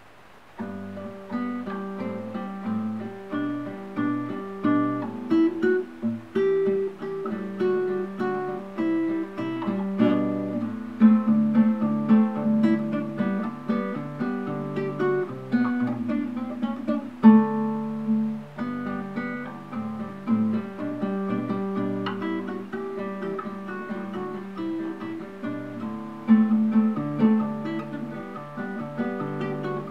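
Classical guitar played fingerstyle, with plucked notes and chords running on continuously from about half a second in, recorded through a camera's built-in microphone.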